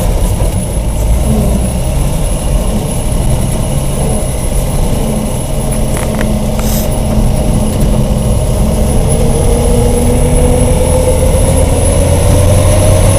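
Truck engine running as the truck drives, heard from inside the cab, a steady low drone with a whine that rises in pitch over the last few seconds. A brief click about halfway through.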